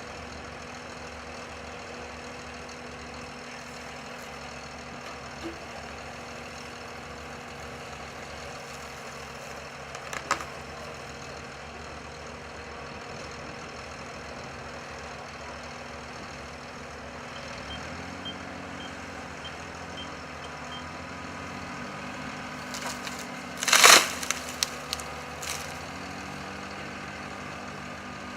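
Heavy diesel equipment engine running steadily, its note rising and working harder from a little past halfway. A few faint beeps sound around the same time, and a loud sharp crack comes near the end.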